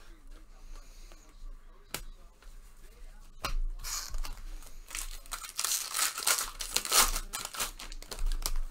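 A couple of sharp clicks, then from about three and a half seconds in a long stretch of tearing and crinkling as a trading-card pack wrapper is ripped open.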